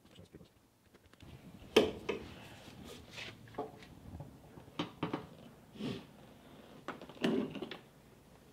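Irregular metal knocks and clunks of a steel suspension control arm being worked into its frame and axle brackets. They start about a second in, and the loudest comes near two seconds in.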